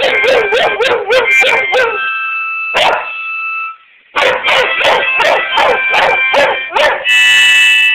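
A Boston Terrier and a Boxer barking in quick volleys and howling, with a wavering howl in the first two seconds, over a steady held musical chord. The barking pauses briefly about two seconds in and again near four seconds, then carries on.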